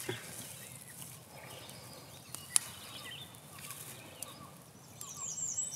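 Small kindling fire of dry twigs and grass just catching, burning faintly with a few sharp snaps spread out over the seconds.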